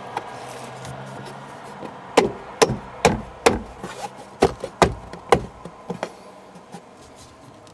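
Sharp knocks on a plastic A-pillar trim panel, about ten in quick succession, as it is struck to seat its clips into their holes.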